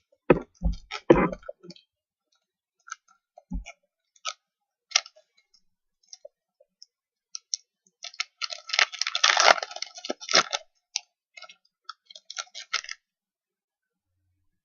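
Trading-card packs being handled and opened: a few knocks and thuds at the start, scattered clicks, then a dense crinkling from about 8 to 10.5 seconds in as a foil pack wrapper is torn open, with more small clicks after.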